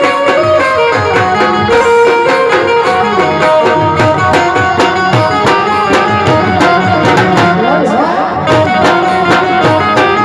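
Live Gujarati folk music: two barrel drums (dhol) beating a fast, steady rhythm under sustained melody from a harmonium and an electronic keyboard.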